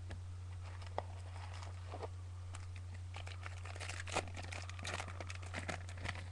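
Trading cards and pack wrappers being handled: scattered crinkles and light clicks, busiest in the second half, over a steady low hum.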